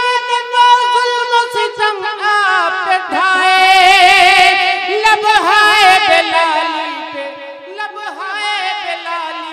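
A man singing an Urdu nazm unaccompanied in a high voice, with no words: a long held note at the start, then fast ornamented runs, easing off toward the end.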